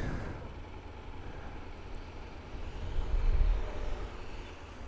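Low rumble of road traffic at a junction with the motorcycle stopped, swelling briefly about three seconds in as another vehicle passes.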